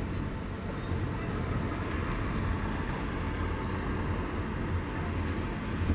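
Steady engine and road noise of a car being driven, heard from inside the cabin.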